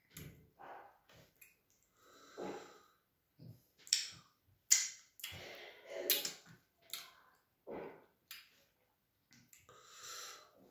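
Close-up mouth sounds of eating fufu and light soup by hand: irregular wet smacks, clicks and slurps as he chews and sucks soup off his fingers.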